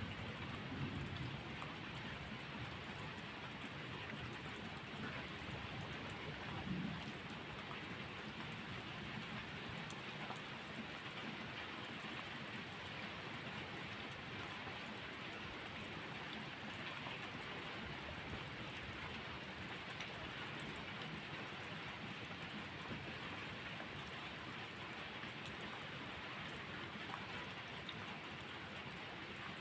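Steady rain falling, with a low rumble of thunder dying away in the first couple of seconds.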